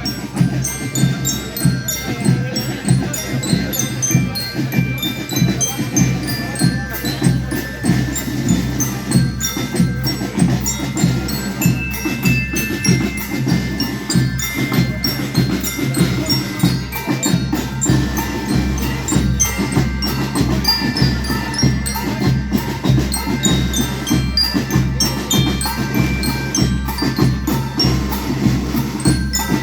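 School rhythm band playing: marching lyres (bell lyres) ring out a melody in short bright notes over a steady marching beat of snare and bass drums.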